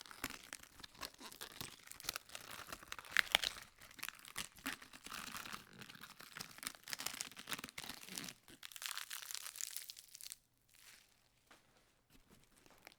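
Lettuce leaves being peeled and torn from a head of lettuce: crisp tearing and crackling with many sharp snaps. It stops about ten seconds in, leaving only a few faint crackles over a faint low hum.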